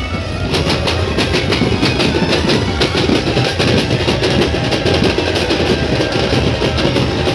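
A group of drummers beating large hand-held drums together in a fast, even rhythm, starting about half a second in.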